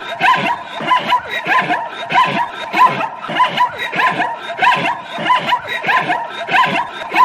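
Zebra calling: a long run of barking yelps, about two or three a second, without a break.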